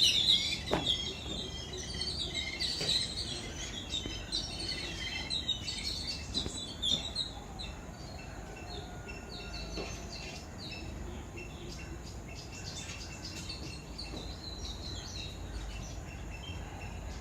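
A flock of small birds chirping and calling to one another in a busy, overlapping chatter. The calls are densest and loudest for the first several seconds, then thin out to fainter scattered chirps.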